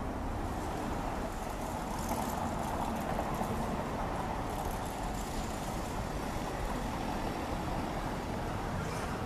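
Steady city street ambience: a continuous hum of road traffic with no single event standing out.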